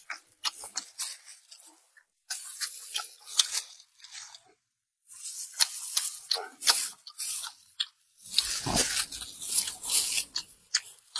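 Close-miked chewing and gnawing of lamb-leg meat and tendon: runs of crunchy, clicky mouth sounds in bursts with short pauses.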